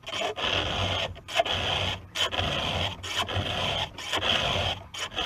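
Round file rasping across a chainsaw chain's cutter tooth in hand strokes, about one a second: the tooth being sharpened by hand.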